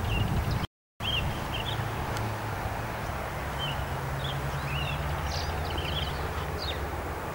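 Chiguanco thrush singing short, high chirping notes at irregular intervals, over a steady low background rumble. The sound drops out completely for a moment just under a second in.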